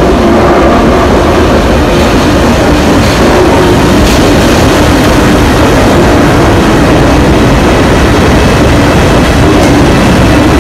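Alco V12 diesel engines of 442 class locomotives running loud and steady as they pass close at walking pace and draw to a stop.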